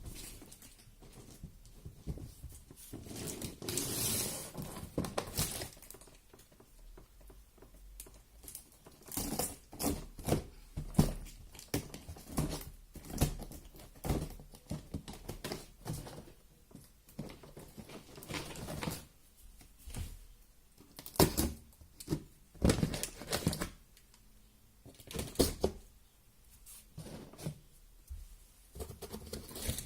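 Scooter packaging being handled and opened: irregular knocks, scrapes and rustles of cardboard and wrapping, with a longer rustle about four seconds in.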